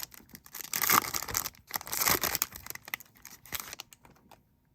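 A trading-card pack wrapper being torn open and crinkled, a dense crackling rustle that dies down about four seconds in, leaving a few light clicks.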